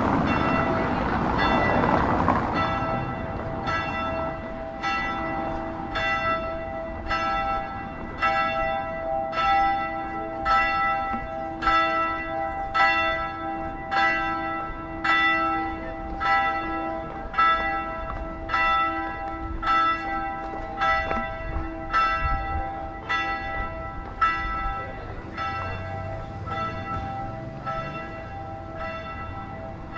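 Church bell tolling with even strikes about once a second, each stroke ringing on into the next. A rushing noise is mixed in during the first couple of seconds.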